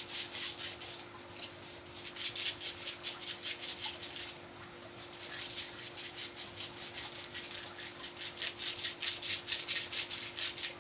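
Massage strokes on bare skin: quick rhythmic rubbing, several strokes a second, with a short pause about four seconds in.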